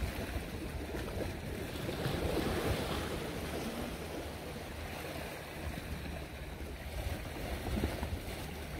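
Sea water washing and lapping against shore rocks, with wind rumbling on the microphone.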